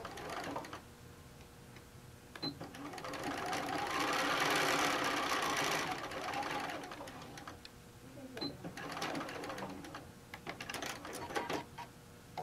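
Bernina sewing machine stitching a quarter-inch seam: it starts about two seconds in, speeds up and slows down again over about five seconds, with a brief high tone as it starts and as it stops, and scattered clicks and taps before and after the run.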